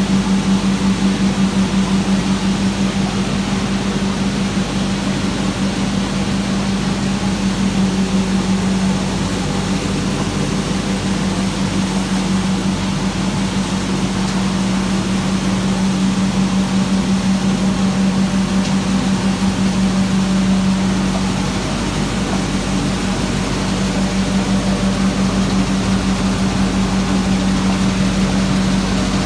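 Machinery in a puffed-rice mill running steadily: an even, loud hum built on one strong low tone, with a fast flutter and a short dip about two-thirds of the way through.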